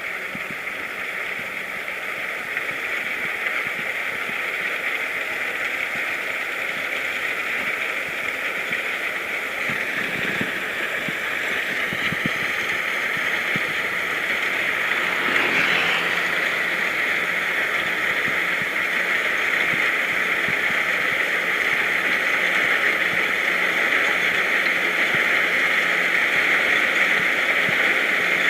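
Kubota DC60 combine harvester running as it travels along a road: a steady, dense mechanical noise that slowly grows louder.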